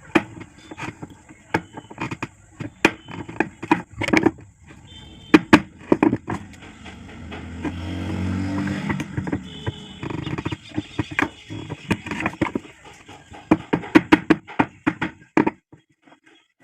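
Irregular knocks and clicks of tools and metal parts being handled during a power cutter repair, with a low hum that swells and fades around the middle; the knocking stops shortly before the end.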